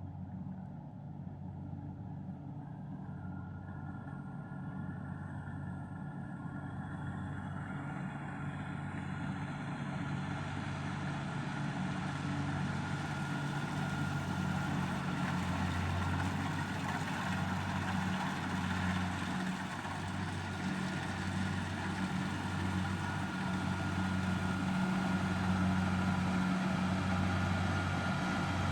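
An engine running at a steady pitch, growing gradually louder, with a mechanical hiss that builds up about a third of the way in.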